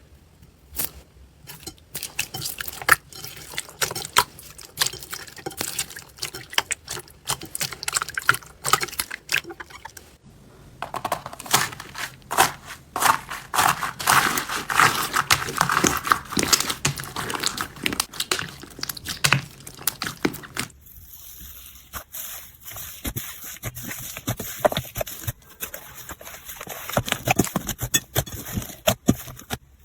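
Slime being handled: dense wet crackling and sticky popping clicks, busiest and loudest in the middle section. The sound changes abruptly about 11 and 21 seconds in, as one slime clip gives way to another.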